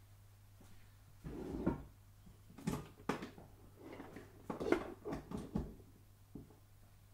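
A series of soft knocks and clunks from objects being handled, about seven in all, the loudest a little before five seconds in, over a steady low hum.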